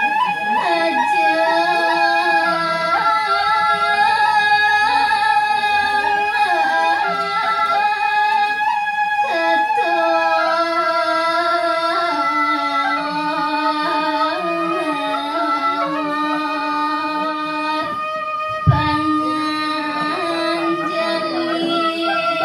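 A woman singing Balinese geguritan verse solo, holding long drawn-out notes that bend and slide between pitches. A brief low thump about three-quarters of the way through.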